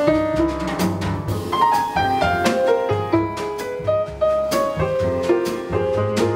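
Live jazz piano trio playing: grand piano melody and chords over a plucked upright double bass line and a drum kit keeping time on the cymbals.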